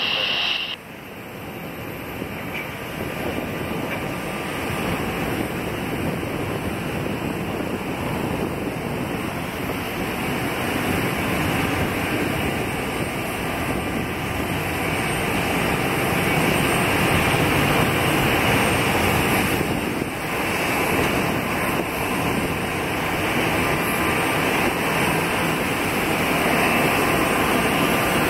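Boeing C-17 Globemaster III on final approach, its four Pratt & Whitney F117 turbofans giving a broad jet rumble that grows steadily louder as the aircraft nears.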